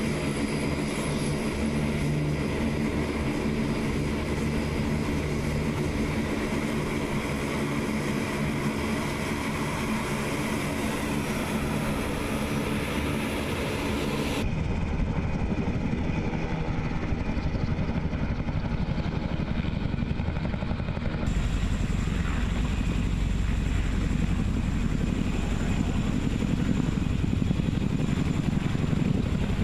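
Four-engine C-130 Hercules turboprops running on the ground, a steady drone with several held pitches. About halfway through the sound changes abruptly to a thinner propeller drone, and about two-thirds in to the low, heavy rotor and engine noise of a CH-47 Chinook twin-rotor helicopter hovering.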